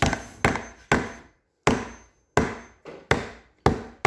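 Hammer driving a nail into a wooden toolbox kit: a steady series of about nine sharp strikes, roughly two a second.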